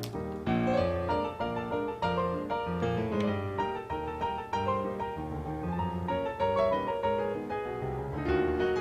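Piano music, a melody of quick notes over steady lower notes.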